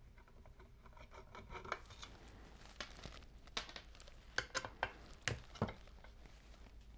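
Small metal parts and tools being handled: a scattering of light clicks, clinks and rubs, busiest in the second half, over a faint steady hum.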